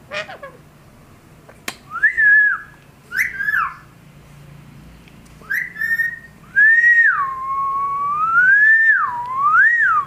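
Indian ringneck parrot whistling: a few short up-and-down whistles, then from about two-thirds of the way in a long wavering whistle that dips and rises again.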